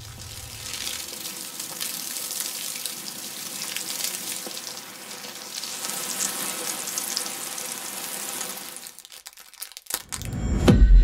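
Water pouring and splashing onto potatoes in a stainless steel pot, a steady hiss for about nine seconds that fades out. It is followed near the end by a loud thump with a low rumble.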